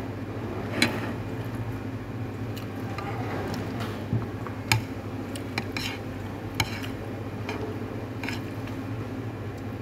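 Metal spoon clicking and scraping on a ceramic plate while scooping rice and chicken: about half a dozen sharp clicks scattered through, over a steady low hum.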